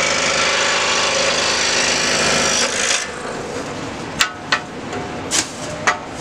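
Scroll saw blade cutting through a block of elm with a steady sawing noise, which stops a little under three seconds in as the cut is finished. A few sharp clicks and knocks follow as the cut-out wooden piece is lifted free and handled on the saw table.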